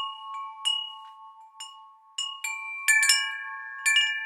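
Wind chimes ringing: metal chimes struck at irregular intervals, about one or two a second, each note ringing on and overlapping the next, with a quick cluster of strikes about three seconds in.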